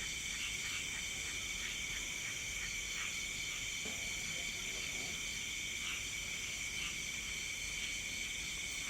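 Night insect chorus of crickets and other insects: a steady, many-layered high trilling at several pitches, one voice pulsing in an even rhythm.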